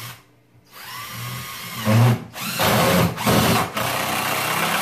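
Cordless impact driver driving a screw into a wooden framing stud. The motor whines as it spins up, then from about two seconds in it hammers loudly as the screw meets resistance, with a few short breaks between runs.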